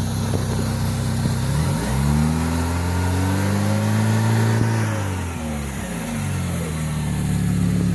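Pontiac Sunfire's 2200 four-cylinder engine idling, then revved once: the pitch rises about two seconds in, holds for a couple of seconds and falls back to idle. The owner calls the engine loud but not knocking, and puts its rough sound down to the belts and pulleys.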